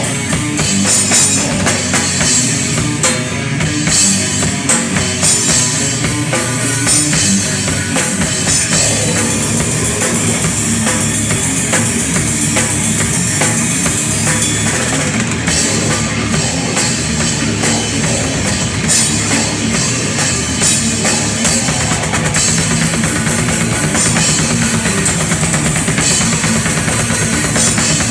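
Live rock band playing, heard from right behind the drum kit: drums and cymbals are loudest, with kick drum and electric guitar underneath.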